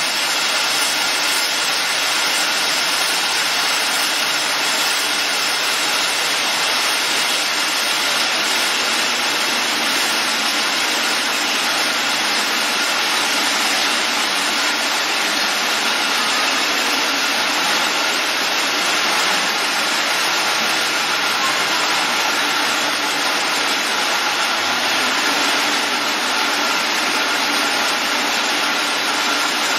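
Three-piece food can body making line running: a steady, loud, even machinery noise from the conveyors and can-forming machines, with a few faint steady whines over it.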